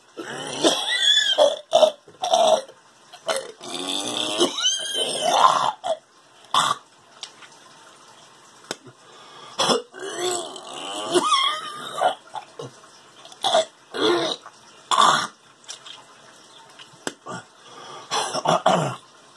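A man hacking and retching in several bouts, his voice straining and bending in pitch as he tries to bring up phlegm, which he says comes up with blood every day.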